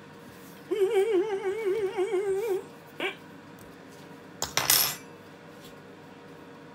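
A woman humming a wavering, vibrato 'mmm' note for about two seconds while eating, savouring the food. About two seconds later comes a brief scrape.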